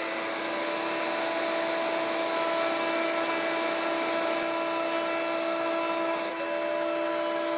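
Trim router with a chamfer bit running at full speed in a benchtop router table while small wooden pieces are routed: a steady high whine over a rush of noise. One tone dips slightly about six seconds in.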